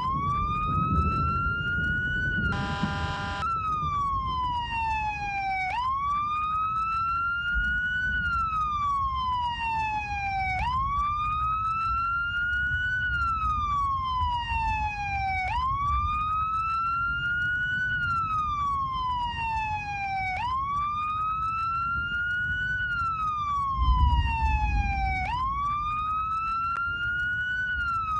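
A siren wailing: its pitch climbs for about two and a half seconds, then slides back down for about three, and the cycle repeats roughly every five seconds over a steady low rumble. A short, flat honk-like tone sounds about two and a half seconds in, and a low thump comes near the end.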